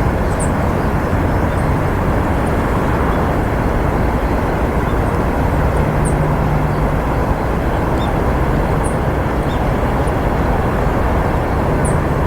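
Steady outdoor background noise, even and unbroken, with a scattering of faint, very short, high bird calls.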